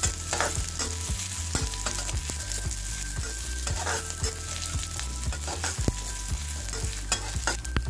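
Chopped coconut pieces, ginger and green chillies sizzling in hot oil in a kadai, being fried until they brown, with a spatula scraping and tapping against the pan as they are stirred. A steady low hum sits underneath.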